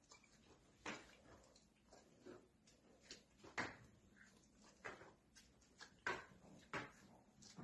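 Faint, irregular knocks and scuffs of a pony's hooves in hoof boots shifting on a concrete stable floor, about one a second.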